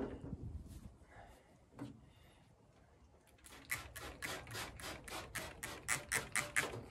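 Trigger spray bottle of rust inhibitor pumped rapidly into the inner bracing of a car trunk lid: a quick, even run of short hissing squirts, several a second, starting about halfway through.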